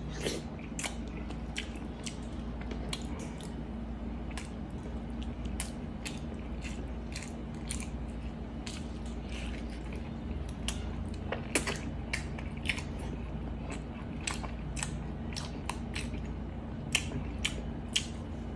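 Close-up eating sounds of a person biting and chewing soft, sticky pork hock braised in Coke, with rice, eaten by hand: wet chewing with many short sharp mouth smacks. A few louder smacks come about two-thirds of the way in and near the end, over a low steady hum.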